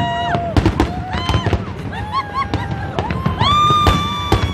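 Fireworks display: aerial shells bursting in rapid, irregular bangs and crackles. Several high whistling tones glide up and hold over them.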